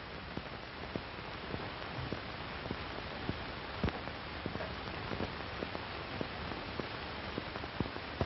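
Steady hiss with scattered irregular pops and crackles: the surface noise of an old optical film soundtrack during a gap in the dialogue.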